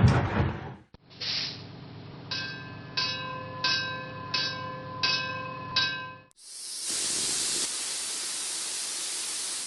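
A low pulsing rumble with a chime-like tone recurring about every 0.7 s, then, after a brief break, a sudden steady hiss of pressurised gas escaping, held for about three seconds.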